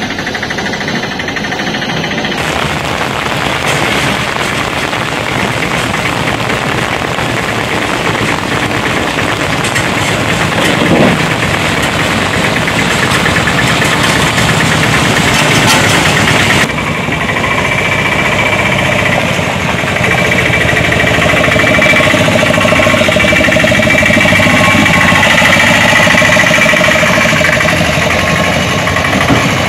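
Autorickshaw engines running as the three-wheelers drive through water-filled potholes. The sound changes abruptly about two seconds in and again about halfway through.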